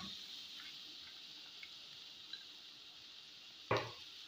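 Onions and dal frying in oil in a steel kadai: a soft steady sizzle with a few faint pops, and one short sharp knock near the end.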